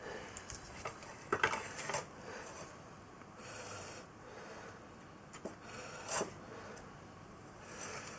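Light knocks and rubbing scrapes as a motorcycle rear wheel is worked into position in the swingarm, with a cluster of clatter about a second and a half in and another single knock near six seconds in.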